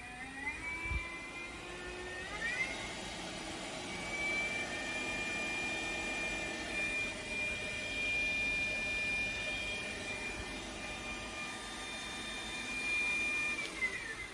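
Bernardo BF 35 BDC drill-milling machine's variable-speed spindle drive running up: a whine that rises in pitch twice in the first few seconds as the speed is dialled up, holds steady at about 1500 rpm, then falls away near the end as the speed is turned down.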